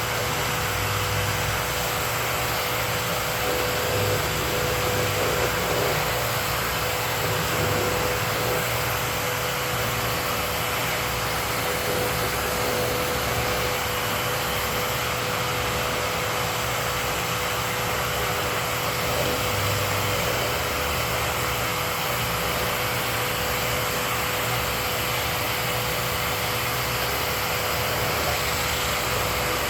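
Workshop dust-collection vacuum running steadily: a constant rush of air with a steady mid-pitched tone.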